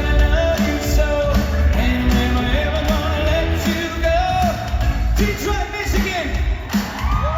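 Live pop concert music played loud through a venue's sound system: a heavy, steady bass beat with singing over it. From about five seconds in, gliding pitched sounds come over the music.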